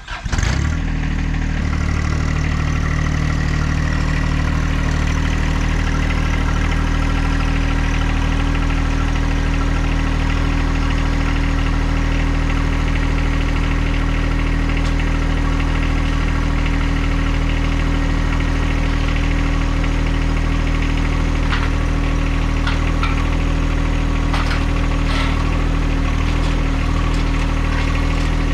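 Tractor engine running steadily at idle; it comes in suddenly at the very start and holds an even, unchanging note. A few faint clicks sound near the end.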